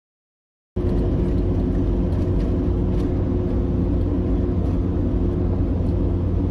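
Vehicle engine and road noise: a steady low rumble with a constant hum, cutting in suddenly just under a second in after silence.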